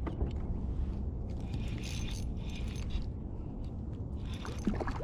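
Fishing reel being cranked, its gears whirring and clicking in two spells, over a steady low rumble of wind on the microphone.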